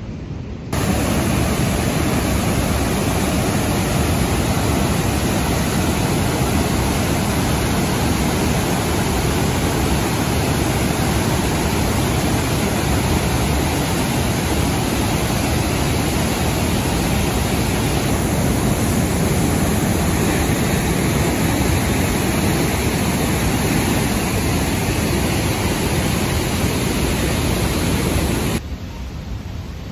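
Large waterfall: a heavy river torrent plunging into a rocky gorge, making a loud, steady rushing roar. It starts about a second in and cuts off abruptly near the end.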